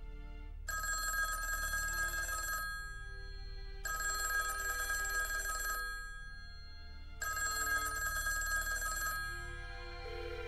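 Telephone bell ringing three times, each ring about two seconds long with a pause of just over a second between rings.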